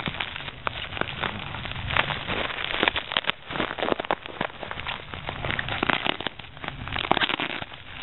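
Bubble wrap being handled and pulled open, crinkling and crackling with many quick, irregular sharp clicks.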